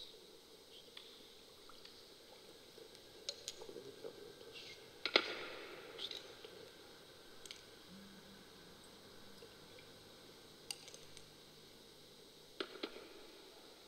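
Wine and water poured from glass cruets into a metal chalice, with faint light clinks of glass and metal as the vessels are handled and set down. The sharpest clink, with a short ring, comes about five seconds in, and another pair near the end.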